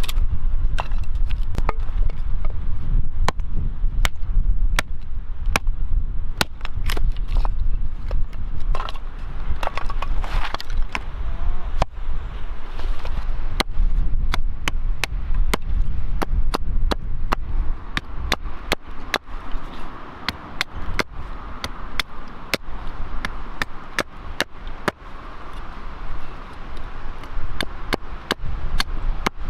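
Firewood crackling and popping in a campfire: many sharp pops at an irregular pace, over a low rumble.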